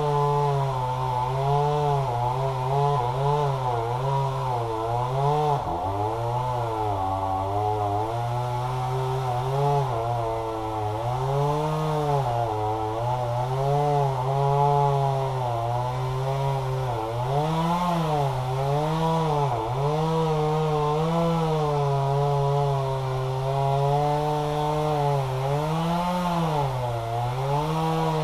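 Chainsaw running at high speed and cutting, its pitch dipping and recovering again and again as the chain bogs under load in the wood, most deeply about six to eight seconds in.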